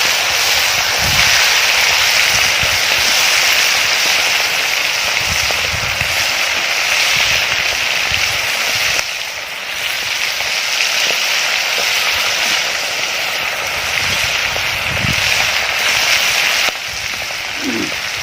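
Masala-marinated quail pieces frying in hot oil: a loud, steady sizzle with crackling and spitting. The level drops abruptly about nine seconds in and again near the end.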